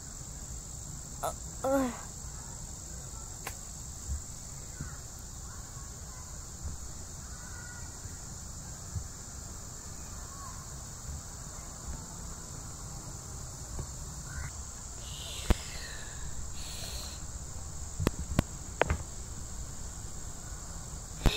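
Steady high-pitched insect drone, crickets or the like, over a low rumble, with a brief voice sound about two seconds in and a few sharp clicks in the second half.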